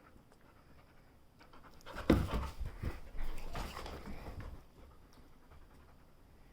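Pet dog panting: a quick run of short, breathy pants starting about two seconds in and fading after a couple of seconds.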